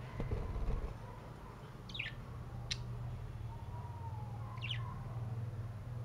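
Caged budgerigars giving two short, quick falling chirps, one about two seconds in and one near the end, with a single sharp click between them, over a low steady hum.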